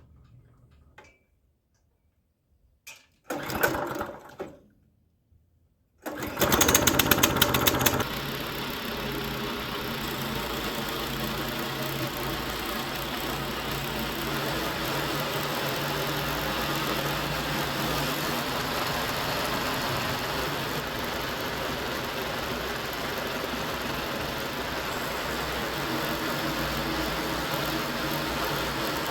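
Small gas engine starting up about six seconds in, louder for the first two seconds, then running steadily. A short separate noise comes about three seconds in.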